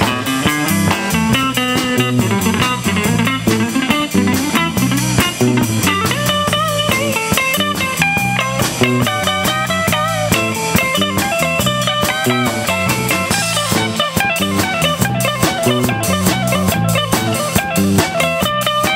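Blues-rock band playing an instrumental passage: a lead guitar runs notes, some bent, over a steady drum beat and a repeating low line.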